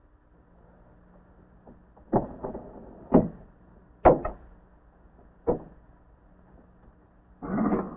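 A run of sharp knocks, about six over three and a half seconds, unevenly spaced, some in quick pairs. A brief rushing noise follows near the end.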